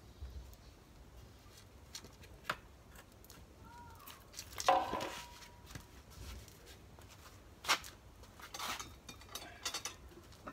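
Scattered knocks and light metal clinks from cast-iron cooking gear being handled at a cooking tripod. The loudest, a little before halfway through, is a metal clank that rings on for about a second.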